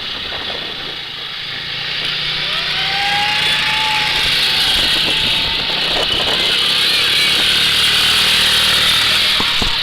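Small vehicle engine running and revving up, rising in pitch and getting louder over the first few seconds, then holding steady.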